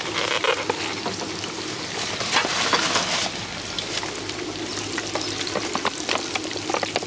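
Skewered sausages and fish cakes frying in a pan of hot oil, a steady sizzle with many small crackling pops.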